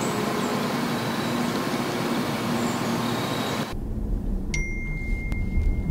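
A steady hiss of outdoor noise, then after a sudden cut the low road rumble of a car driving, heard from inside the cabin. A single high steady electronic tone starts sharply about four and a half seconds in and holds over the rumble.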